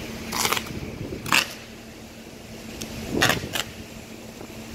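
Hurricane wind gusting in short hissing bursts, four times, over a faint steady low hum.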